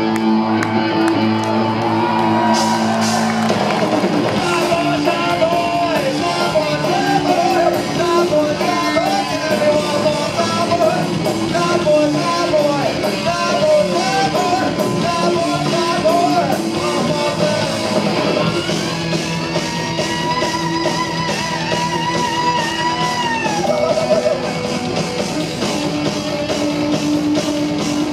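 Live rock band playing loud: electric guitar, bass guitar and drum kit, with a man singing. A long, wavering held note comes about two-thirds of the way through.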